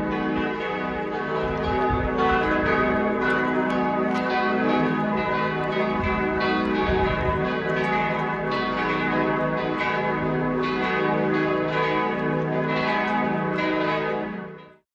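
Church bells pealing, several bells ringing together in a dense, continuous peal that cuts off sharply near the end.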